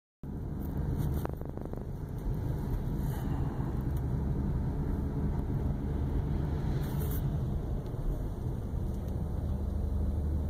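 Steady low rumble of a car's engine and tyres on the road, heard from inside the cabin as it drives along.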